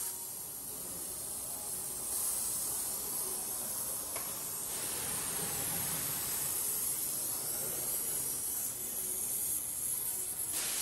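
Oxy-acetylene torch flame hissing steadily as it heats a seized, rusted caliper bracket bolt to free it, the hiss swelling a little about two seconds in.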